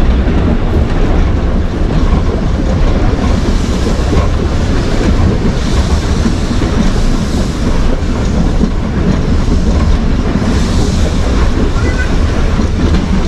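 Heritage electric tram running along the line, heard from on board: a steady loud noise of wheels on the rails. Stretches of higher hiss come midway and again near the end.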